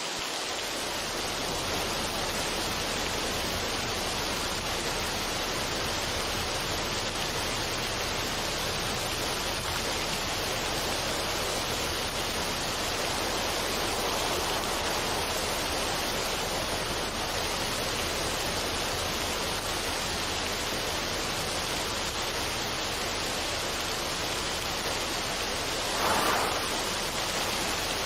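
Waterfall on a mountain stream, water pouring steadily over rocks in an even rushing hiss, with one brief louder surge of splashing near the end.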